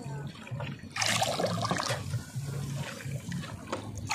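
Water sloshing and splashing, louder from about a second in.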